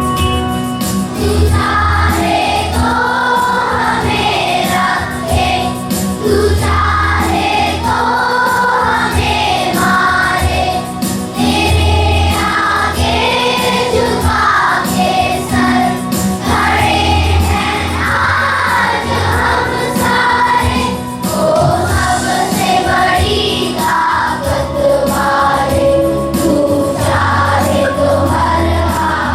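A group of voices singing a song together over instrumental accompaniment with a steady beat.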